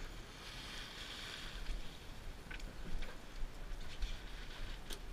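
Background noise on board a small fishing boat: a steady low rumble and hiss, with a few faint sharp clicks about two, two and a half, and five seconds in.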